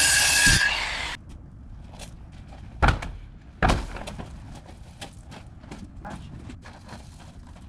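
A loud rasping noise with a steady high whine cuts off suddenly about a second in. Then come two heavy thuds a little under a second apart, with scattered light knocks and clicks.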